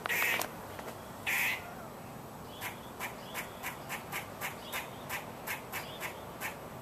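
Squirrel calling: two longer calls in the first second and a half, then a steady run of short sharp calls at about four a second.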